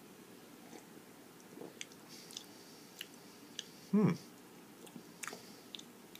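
Faint mouth sounds of someone tasting a sip of beer: scattered small lip smacks and tongue clicks, with one brief sound from the throat about four seconds in.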